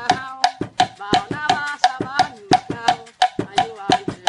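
Thai folk music in a ramwong rhythm played on homemade instruments: sharp, evenly spaced percussion strikes about four a second, each with a ringing tone, under a wavering pitched melody line.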